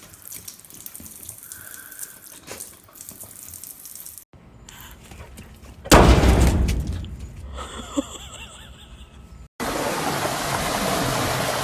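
Water sounds: a loud sudden splash about six seconds in that dies away over a second or two, then steady rushing water from near the end.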